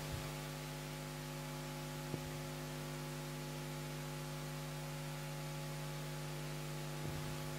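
Steady low electrical mains hum with one faint click about two seconds in.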